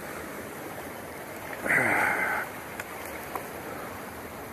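Surf washing and fizzing among shoreline rocks, a steady wash. About two seconds in, a brief louder sound with a falling pitch rises over it, and a couple of faint clicks follow.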